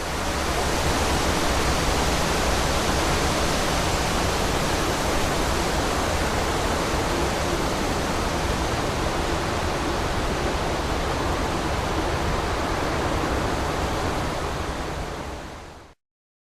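Steady, even rushing hiss that fades in at the start and fades out near the end.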